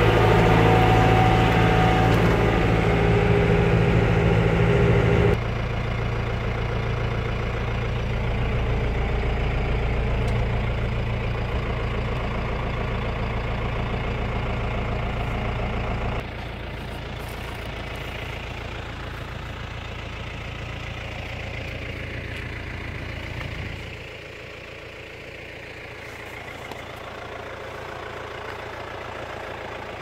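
Yanmar EG83Y tractor's diesel engine running steadily while ploughing. It is loudest for the first five seconds, then quieter after sudden drops about five, sixteen and twenty-four seconds in.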